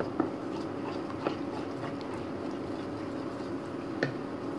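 A flat utensil stirring thick white sauce in a metal pan, with a few light clicks of the utensil against the pan over a steady low hum.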